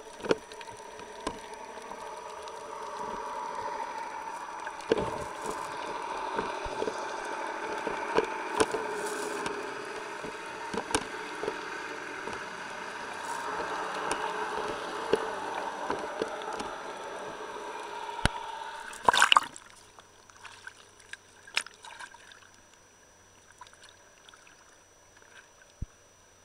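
Muffled underwater water rush with scattered clicks and knocks, heard through a camera held by a freediving snorkeler. About three-quarters of the way through comes a short loud burst of splashing as the snorkeler breaks the surface, then only faint water splashes.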